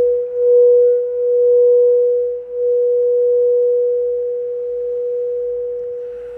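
Singing bowl sounding one sustained, steady tone with a faint higher overtone; its loudness wavers, swelling and dipping every second or two.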